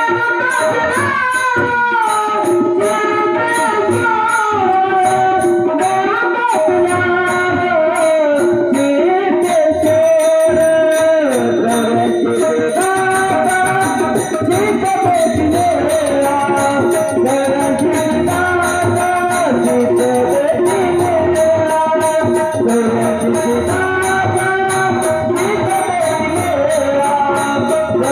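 Marathi abhang bhajan music: a melody that bends and holds notes, over a hand drum and small hand cymbals ticking in a steady beat.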